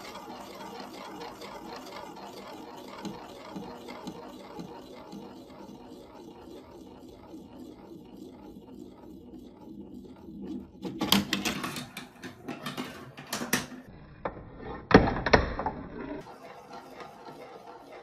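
Glass marble spinning around a clear plastic funnel bowl of a block marble run, a steady rolling rattle that slowly fades. Then clicks and clatter as marbles drop through the plastic track pieces, with a loud knock near the end.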